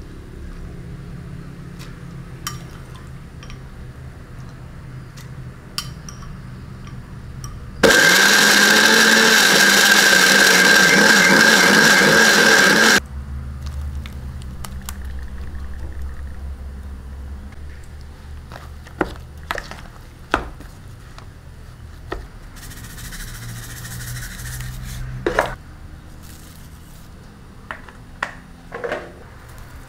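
Electric blender running for about five seconds, grinding shallots into a red sambal paste; it starts and stops abruptly. Before and after it come scattered light clicks and knocks of a spoon and bowl.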